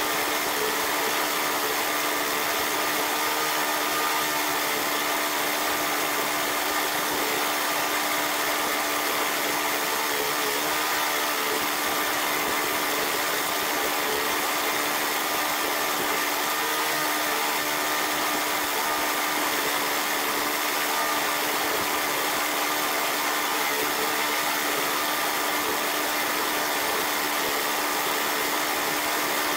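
Push lawn mower's Briggs & Stratton Classic single-cylinder engine running steadily while mowing grass, its crankcase filled with peanut oil instead of motor oil.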